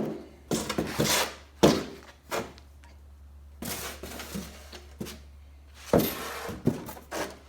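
Handling and unpacking noises: a series of irregular knocks, thunks and short rustles as scooter parts and packaging are moved about.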